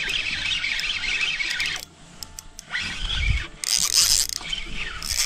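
Spinning reel being cranked to wind in line, giving a whirring of gears in short bursts, with a low thump about three seconds in.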